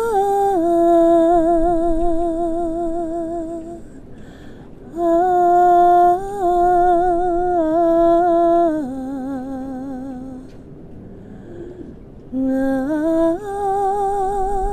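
A woman's voice humming a slow, wordless melody: long held notes with a wavering vibrato, in three phrases with short breaths between them.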